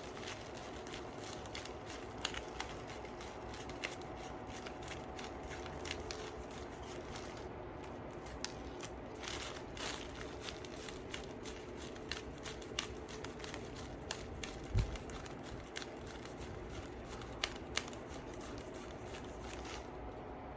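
Small beads clicking as they are handled and threaded, a scatter of light, irregular ticks over a steady background hum. One dull bump about fifteen seconds in.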